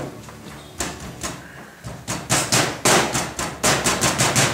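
Wooden meat mallet pounding a pork loin cutlet on a cutting board, beating the edges of the rolled meat shut around the ham-wrapped cheese. A couple of separate knocks come in the first second and a half, then after a short pause a quick, even run of blows at about five a second.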